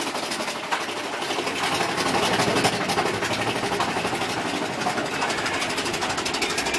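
Big Thunder Mountain Railroad mine-train coaster cars clattering along the track in a fast, steady rattle.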